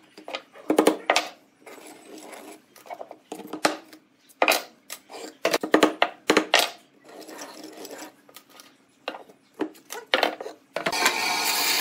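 Small hammer tapping a nail into a pine board, in short clusters of sharp taps with some wooden clatter between them. Near the end a band saw starts running steadily.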